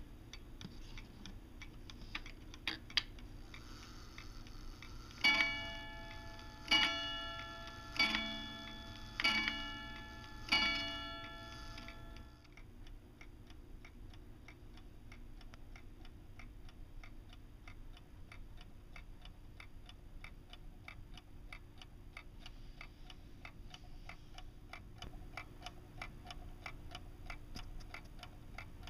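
Alaron C35 mantel clock's 31-day key-wound movement striking five times on its gong rods, each stroke about 1.3 s apart and ringing out before the next, after a couple of clicks. Steady ticking of the pendulum movement runs underneath and carries on alone after the strikes.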